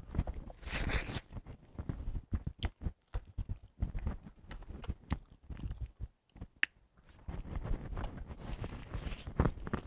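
Close-up eating sounds: chewing and mouth smacking, with many small irregular clicks and a couple of brief hissy bursts.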